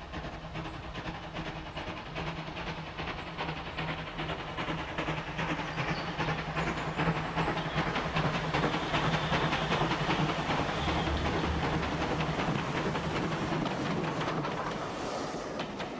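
Steam locomotive hauling coaches, its exhaust chuffing in a steady beat with hissing steam. It grows louder as it approaches and runs close past near the end.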